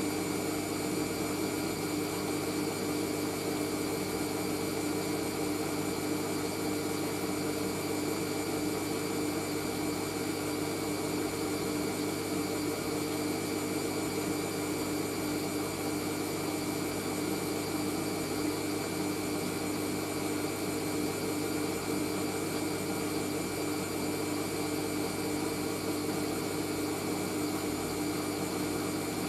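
Hoover AAA160 Whisper 1600 front-loading washing machine spinning at a steady speed during an intermediate spin, before the final rinse. Its motor whines at a constant pitch over the rush of the drum, with no change in speed.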